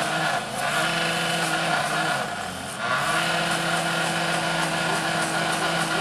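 Track-repair machinery running steadily: an engine hum under a wide hiss, with two brief dips in level and pitch, about half a second in and again just past two seconds.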